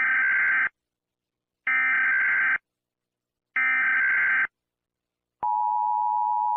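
Emergency Alert System header: three short bursts of buzzy data tones about two seconds apart. Then the steady two-tone EAS attention signal starts about five seconds in, announcing the alert.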